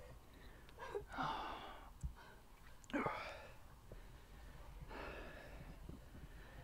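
A man breathing hard in distress, three loud gasping breaths about two seconds apart, the middle one the loudest.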